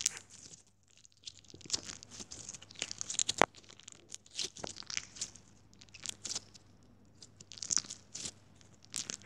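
Crunchy bead-filled slime squeezed and pulled apart by hand, giving an irregular run of crunching, crackling pops, the loudest a little over three seconds in.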